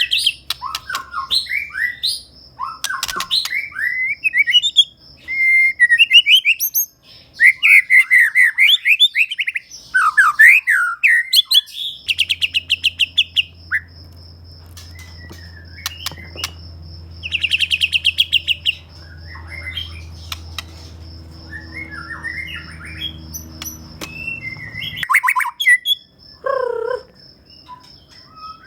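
White-rumped shama (murai batu) singing continuously: a varied string of sweeping whistled phrases broken by fast rattling trills. A faint low hum runs under the song through the middle stretch.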